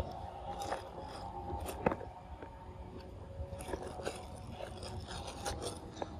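Macaque chewing a mouthful of food, with irregular crunching clicks, the loudest about two seconds in.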